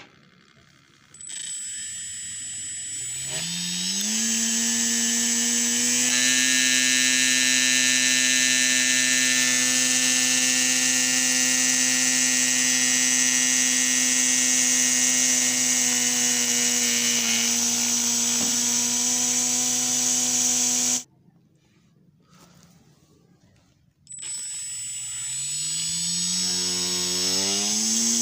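Homemade grass cutter's 2200 KV brushless drone motor spinning up with a rising whine, then running at a steady high-pitched whine. It cuts off suddenly about three-quarters of the way through, then after a few seconds of quiet spins up again with a rising whine near the end.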